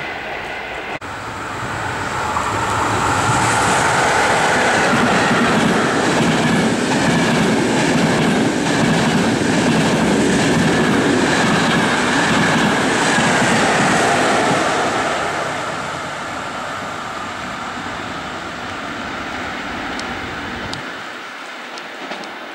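Electric passenger train in Frecciabianca coaches passing close at speed, its wheels running on the rails. The sound builds over a couple of seconds, stays loud for about ten seconds, then fades as the train recedes.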